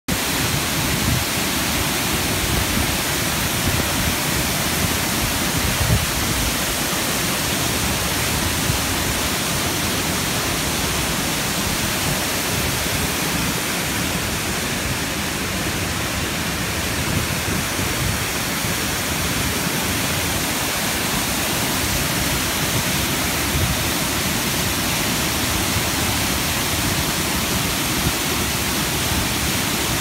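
Waterfall pouring into its rocky plunge pool: a steady, unbroken rush of falling water.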